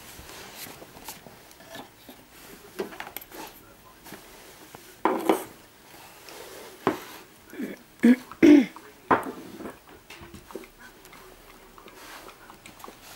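Stainless steel food bowls clinking and knocking in a wooden rack as puppies eat from them. The loudest moments are a few short vocal sounds, about five seconds in and again around eight to nine seconds.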